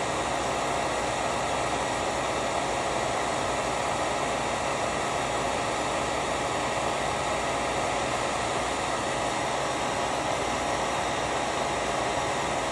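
Heat gun running steadily, a constant rush of blown air with a faint steady motor whine, heating the colored pencil layer to blend it into the canvas.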